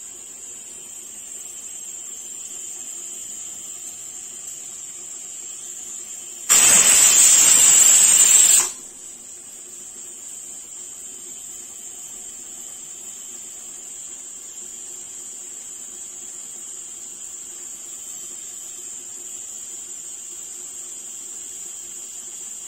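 Aluminium pressure cooker with a weighted valve hissing steadily, then about six seconds in letting off one loud whistle of escaping steam for about two seconds before falling back to the hiss. The whistle is the sign that the cooker has come up to pressure; two or three whistles mark the curry as cooked.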